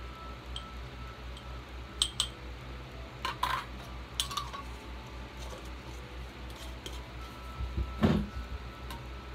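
A metal spoon clinks against a small glass jar of dye powder: a few light clinks about two to four seconds in, then a louder dull knock near the end, over a steady low hum.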